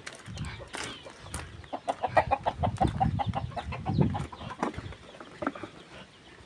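Chickens clucking, with a quick run of short, rapid clucks in the middle.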